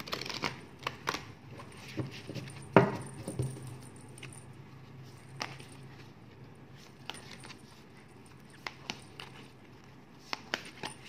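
Tarot cards being handled and laid down on a table: scattered light clicks and taps, the loudest about three seconds in, growing sparser after about four seconds.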